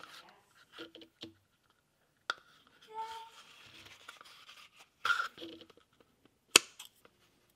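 Soft handling sounds of hand-stitching a leather card holder, with the waxed thread rubbing as it is drawn through the leather. A sharp click about six and a half seconds in is the loudest sound.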